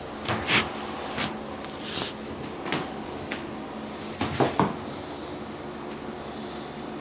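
Short, sharp clicks and knocks from handling on a chiropractic treatment table, about seven in all: two close together just after the start, single ones at about one, two, and three seconds in, and a quick cluster of three around four and a half seconds in.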